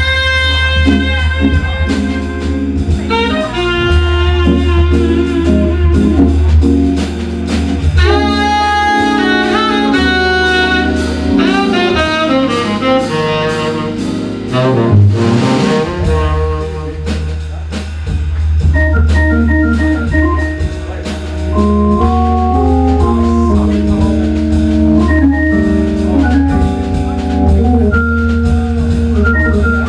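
Live jazz organ trio: tenor saxophone playing the melody over Hammond organ chords and organ bass line, with drums and cymbals. Around the middle the saxophone drops out and the Hammond organ carries on alone with the drums.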